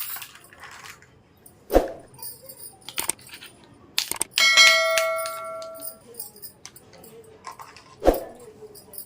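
Small plastic toy pieces being handled and set down: sharp clicks and knocks, with two heavier knocks about two seconds in and near the end. Halfway through, a tap is followed by a bright ringing ding that fades over about a second and a half.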